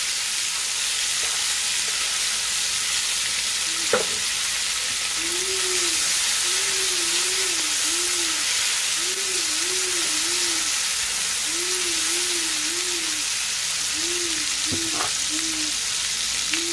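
Chopped bell peppers sizzling steadily in hot oil in a nonstick frying pan as they are stirred with a silicone spatula, with two sharp knocks about four and fifteen seconds in.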